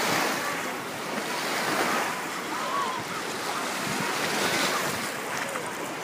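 Small waves washing onto a sandy shore, with wind rushing on the microphone and faint voices of people in the distance.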